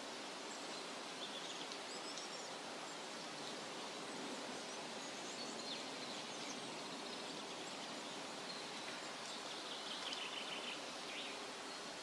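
A small rocky forest stream flowing, a steady rushing hiss of water over stones. Faint short bird chirps come through a few times, most clustered near the end.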